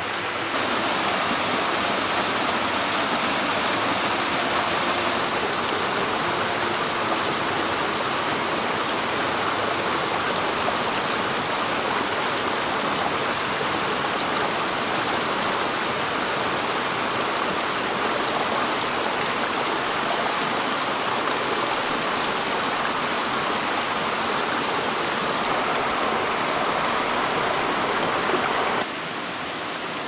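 Mountain stream rushing steadily. It gets a little louder under a second in and drops back near the end.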